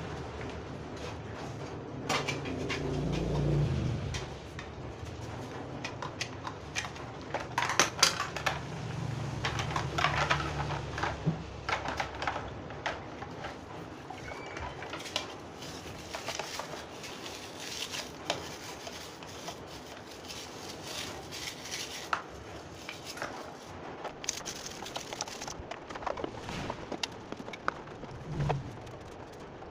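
Blender parts being washed by hand in a plastic basin of soapy water: irregular splashing and scrubbing, with plastic and metal pieces knocking and clinking against each other and the basin. A low rumble runs under it for about the first ten seconds.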